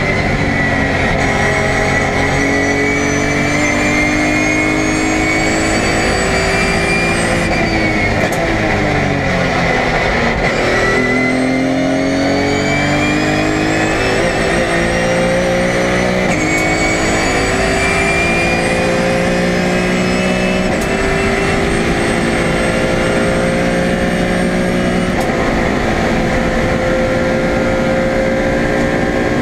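BMW E46 M3 race car's straight-six engine heard from the cockpit under hard driving. The revs fall under braking about a third of the way in, then climb again under full throttle, with sudden drops in pitch at each upshift about halfway through and twice more near the end. A high whine follows the revs.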